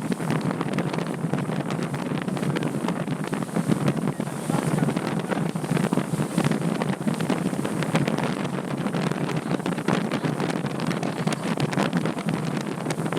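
Wind rushing and buffeting over the microphone on a moving boat, a continuous noise over a steady low rumble.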